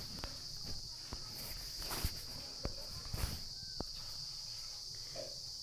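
Steady high-pitched chirring of crickets in the background, with a scattering of soft clicks and a few brief rustles over it.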